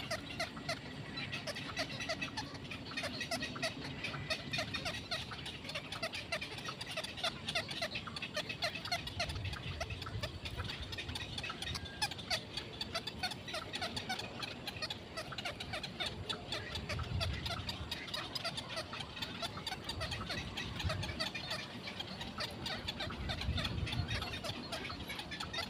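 A dense chorus of many short, rapid bird calls overlapping one another, with a few low rumbles in the second half.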